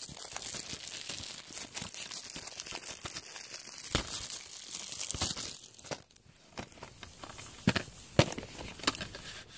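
Plastic shrink wrap being torn and peeled off a DVD case, crinkling for about six seconds, then a few sharp clicks and taps.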